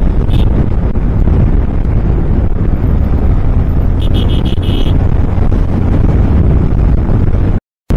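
Wind buffeting the microphone on a motorcycle riding along a highway, a loud steady rush with the bike's running and road noise underneath. A brief high tone sounds about four seconds in, and the sound cuts out for a moment near the end.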